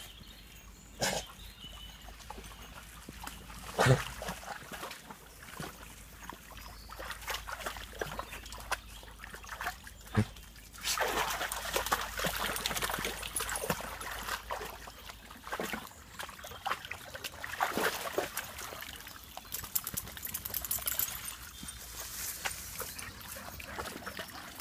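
Spaniels wading and splashing in a shallow muddy stream, with water sloshing and trickling; the splashing grows louder partway through. Before that, it is quieter, with a few sharp knocks.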